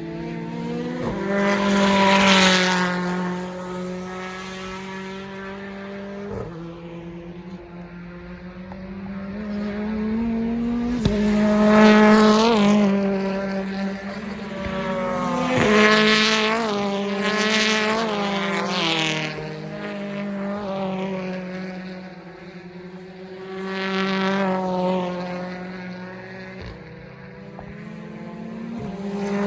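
British Touring Car Championship race cars passing at speed one after another, several times, each engine's pitch rising as it approaches and falling away as it goes by, over a steady low drone.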